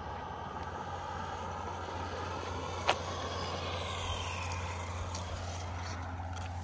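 Electric RC car running, its motor whine gliding up and down in pitch, with one sharp click about three seconds in.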